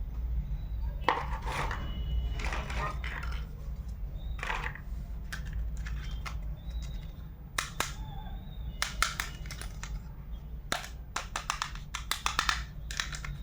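Pieces of a small plastic toy kitchen set and its packaging being handled: scattered clicks, taps and short rustling clatters, with a quick run of clicks near the end, over a low steady hum.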